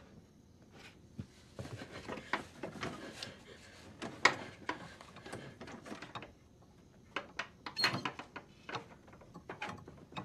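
Quiet scattered clicks, scrapes and rattles of an old rusty door lock and slide bolt being fumbled at by hand, the sharpest clicks about four seconds in and again near eight seconds.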